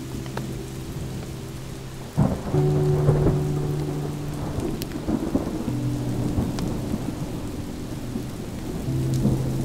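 Steady rain falling in a thunderstorm, with a loud rumble of thunder about two seconds in, under low sustained background chords that shift every few seconds.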